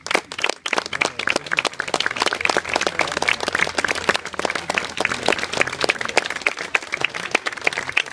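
Crowd applauding, many hands clapping at once, swelling sharply at the start and continuing steadily.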